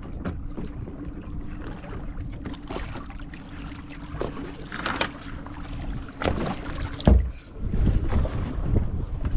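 Idling boat engine humming steadily under wind noise on the microphone, with water splashing as a large fish is pulled up the side of the boat by hand. About seven seconds in, a loud thump as the fish lands on the deck.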